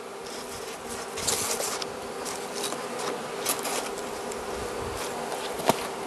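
Carniolan honey bee colony humming steadily in the opened hive, over a layer of dry feeding sugar. A few brief rustles and a sharp knock near the end.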